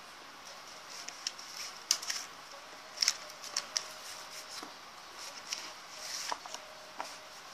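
Glossy magazine paper being handled: irregular rustling and crackling with a scattering of sharp clicks and taps.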